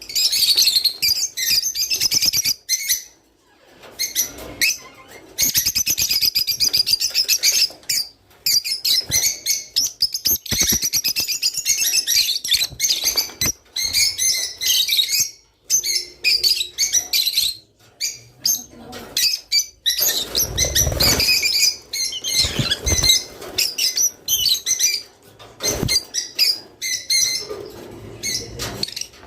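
Small cage birds of the kind keepers call 'roz' chirping and twittering in quick runs of high notes, broken by short pauses. A few low thumps and flutters come a little after two-thirds of the way through.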